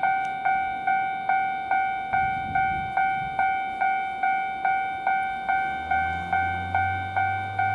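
Railway level-crossing warning bell ringing, a ding repeated steadily about two and a half times a second. A low rumble of the approaching Kintetsu train comes in about two-thirds of the way through.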